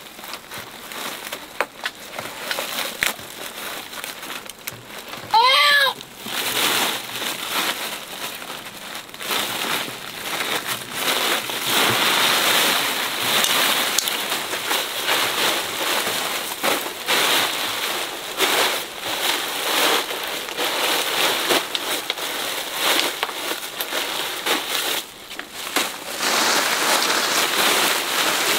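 Woven plastic tarp rustling and crinkling as it is pulled out and shaken open, over steady rain. A brief high voice calls out once about five seconds in.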